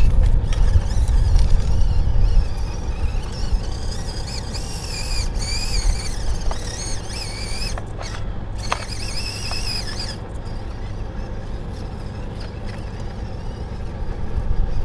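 Stock RC rock crawler Jeep JLU's electric motor and gear train whining, the pitch rising and falling as it is throttled over rocks for several seconds in the middle, with a few sharp clicks. A steady low rumble runs underneath.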